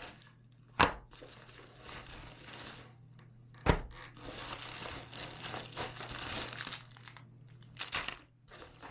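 Packaging crinkling and rustling as a parcel is unpacked by hand, with two sharp knocks, one about a second in and one near the middle.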